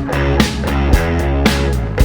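Background music with a steady beat of about two hits a second over sustained pitched instruments.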